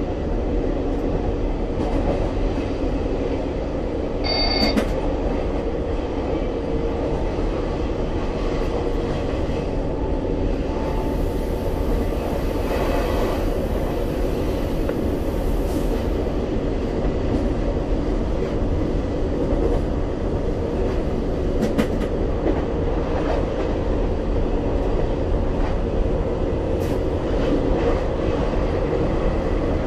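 Regio 2n (Z 57000) electric multiple unit running at speed, a steady rumble heard from the driver's cab. A brief high tone and a few sharp clicks cut through it.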